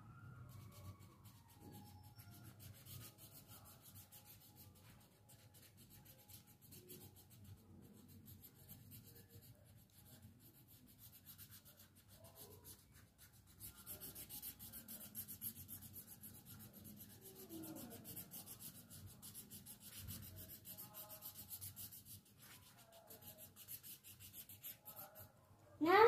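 Brown colouring pencil scratching quickly back and forth on paper as an area is filled in. Faint throughout, it gets scratchier and louder about halfway through.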